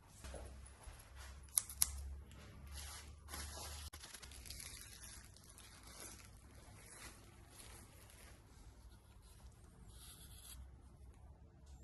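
Packaging being cut and torn open by hand, in uneven scraping and tearing strokes, with two sharp clicks about two seconds in.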